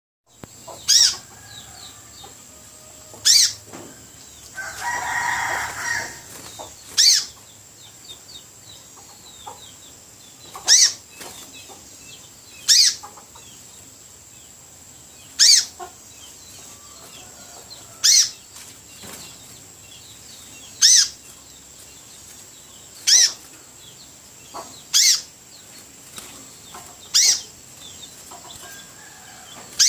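A newly caught spiderhunter (sogok ontong) calling freely, giving a sharp, high call about every two to three seconds. About five seconds in there is a short burst of rustling, fluttering noise, and a faint steady high whine runs underneath.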